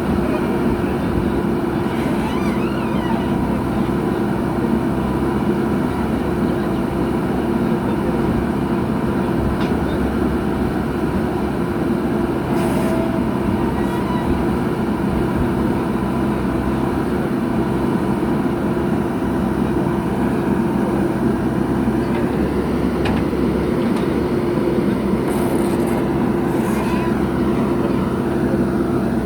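Heavy diesel engine of earth-moving machinery running steadily, with a few brief high-pitched squeaks or clanks along the way.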